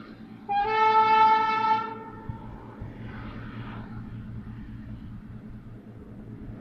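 A railway snow-clearing train with a Beilhack rotary snow blower sounds one horn blast of about a second and a half, starting half a second in. Underneath, the machine's low, steady running drone with a regular pulse carries on throughout.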